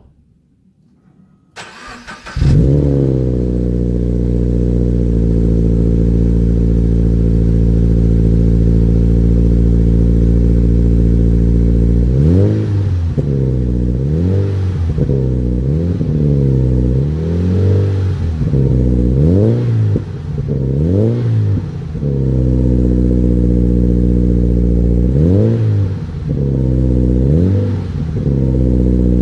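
Toyota GT86's 2.0-litre flat-four boxer engine through an Invidia N1 cat-back exhaust, starting about two seconds in with a brief flare and then idling steadily. From about twelve seconds in it is revved in a series of quick throttle blips, each rising and falling back to idle. It idles again briefly, then a few more blips come near the end.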